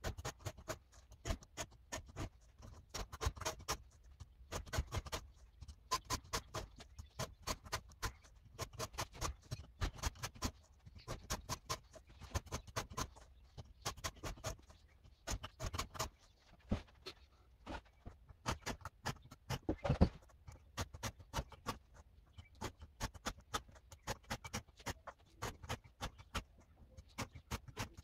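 Chain file in a filing guide rasping across the cutters of a Makita DUC353 cordless chainsaw's chain in quick short strokes, several a second, with one louder knock about twenty seconds in.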